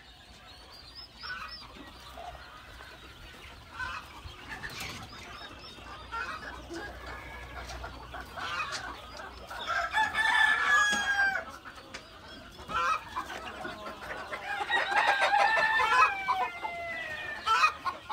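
Domestic chickens clucking, with roosters crowing: long drawn-out crows about ten seconds in and again about fifteen seconds in.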